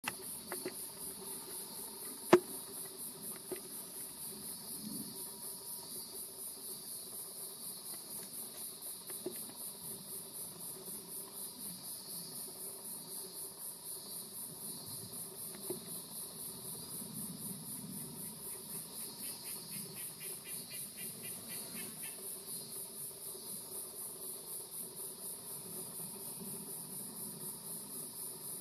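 Steady high-pitched pulsing song of insects, unbroken throughout, with one sharp click about two seconds in.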